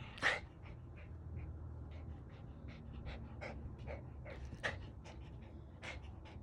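Small white fluffy dog panting in short, irregular breaths, with a sharper huff just after the start.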